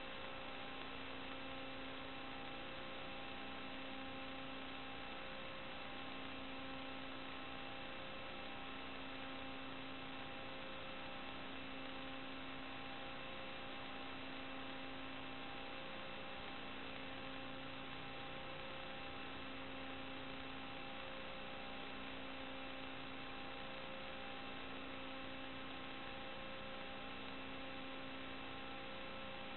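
Steady electrical hiss and hum with several fixed tones, one low tone gently pulsing, unchanged throughout: the noise of an analog FPV video link's audio channel as recorded by the receiver, not the quadcopter's motors.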